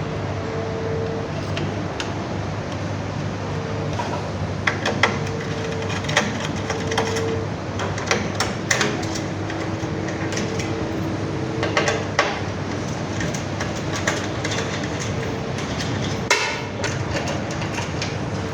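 Sharp knocks and clicks of parts and tools being handled on a battery case, scattered irregularly over a steady low hum.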